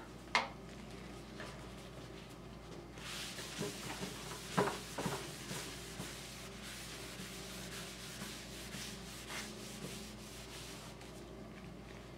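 Cloth rag rubbing gel stain over an oak tabletop, a soft swishing friction. There is a sharp knock about half a second in and another a little before five seconds.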